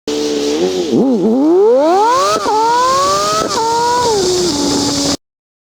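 A 2002 BMW 330ci's 3.0-litre straight-six, breathing through a Magnaflow muffler with the stock resonators kept, accelerating hard. The pitch climbs through a gear, drops sharply at an upshift, climbs again and drops at a second upshift, then eases off to a steady lower note. The sound cuts off abruptly near the end.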